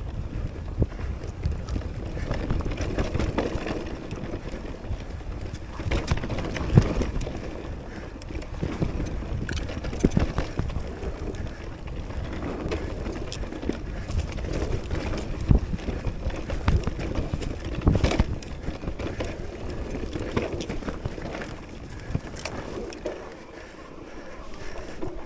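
Mountain bike ridden over rough trail: wind buffeting the microphone, tyres rumbling over the ground, and frequent knocks and rattles as the bike hits bumps.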